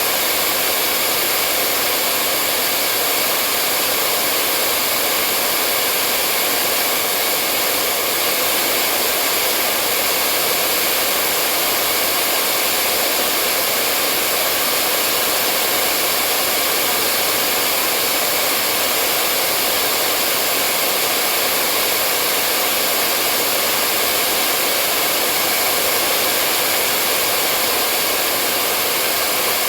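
Hair dryer blowing steadily: a continuous airy whoosh with a faint motor hum, unchanging throughout.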